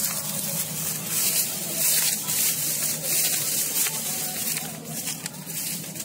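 An engine runs steadily under a loud, rushing hiss that comes and goes in gusts.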